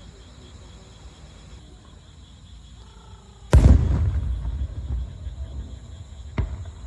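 Fireworks: about halfway through, an aerial shell bursts with a sudden loud boom, and its rumble and echo fade over a couple of seconds. A second, shorter and sharper bang comes near the end.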